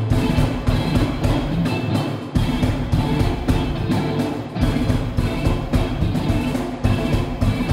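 Live rock band playing loud: lead electric guitar over a drum kit with hard, frequent drum hits. The sound is muffled, as recorded by a smartphone's microphone in the audience.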